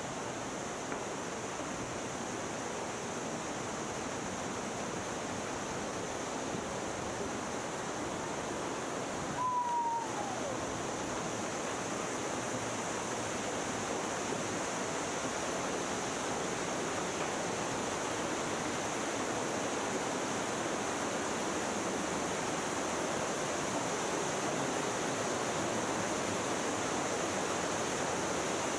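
Mountain stream rushing over rocks and small cascades below the boardwalk, a steady rushing that grows slightly louder toward the end. About ten seconds in comes one brief falling whistle.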